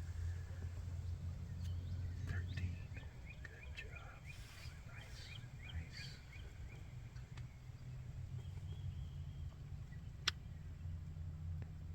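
Small birds chirping in quick short notes for a few seconds over a steady low rumble, with one sharp click near the end.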